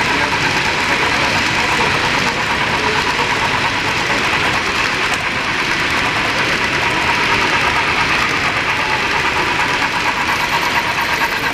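Sound-equipped HO steam locomotive, an IHC 2-10-2 with a Tsunami 2 sound decoder, chuffing in a fast, even rhythm through its small onboard speaker, with the rumble of model freight cars rolling on the track.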